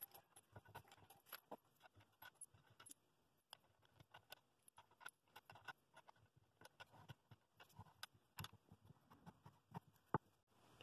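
Faint, scattered clicks and taps of washers, wing nuts and small wooden blocks being handled and fitted onto the threaded steel rods of a homemade bowl glue-up press.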